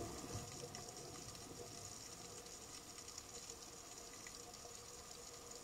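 Underwater ambience heard through a diving camera: a faint steady hum and hiss, with some low bubbling rumble near the start.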